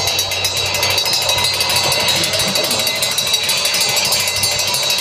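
Live noise music from electronics and drum kit: a loud, dense wall of harsh noise with a steady high whine running through it.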